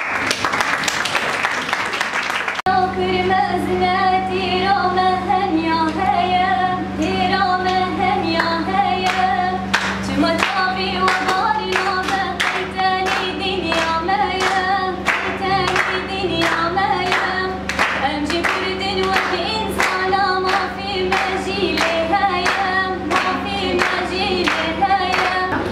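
Group applause for about two seconds, then a woman singing a melody while hands clap steadily in time, roughly twice a second.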